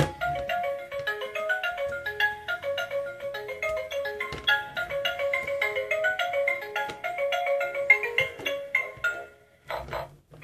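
A tinny electronic jingle of short bell-like notes, like a xylophone, played by a Peppa Pig talking toy car. The tune stops about nine seconds in.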